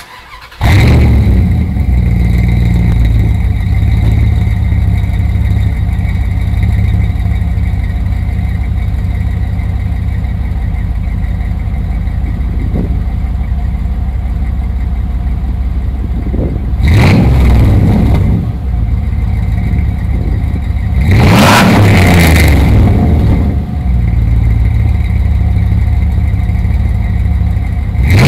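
2003 Dodge Dakota R/T's 5.9-litre V8 starts about half a second in and settles into an idle through a catless exhaust with a Flowmaster 50 Series Delta Flow muffler dumped at the axle. It is revved twice: a short blip a little past halfway, and a longer rev a few seconds later.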